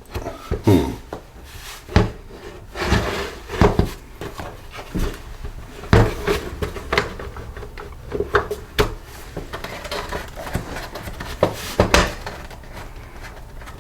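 Plastic housing of a Toro 60V handheld blower being pried and worked with a pick or small screwdriver at its locking tabs: irregular clicks, knocks and scraping, with sharper knocks about six and twelve seconds in.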